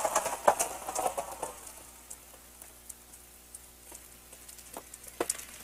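Crowd applause dying away into scattered, isolated hand claps, with a few more single claps near the end.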